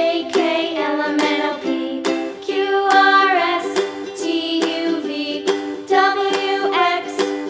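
Light background music with plucked-string notes and a gliding melody line.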